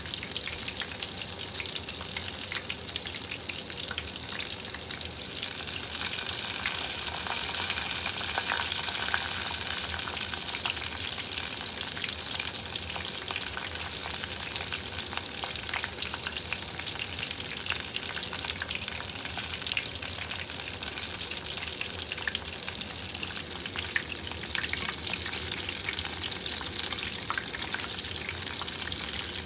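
Battered firm-tofu karaage deep-frying in a pot of oil: a steady sizzle full of small crackles and pops as water boils out of the tofu. It grows a little louder about six seconds in.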